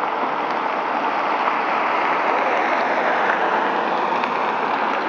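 Passing car on a street: tyre hiss on the road surface that swells to its loudest around the middle and eases slightly after.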